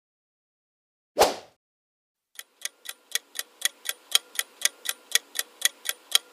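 A short transition sound effect about a second in, then a countdown-timer ticking sound effect, clock-like ticks at about four a second, starting about two and a half seconds in.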